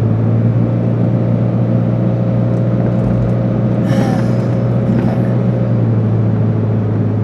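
Car running, heard from inside the cabin: a steady low hum of engine and road noise, with a brief higher rattle about four seconds in. This is the sound the driver asks about after having work done on the car's tires.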